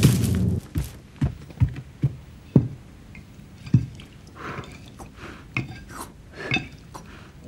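A few soft knocks in the first seconds, then light clicks and taps of a spoon against a plate as a person eats at a table.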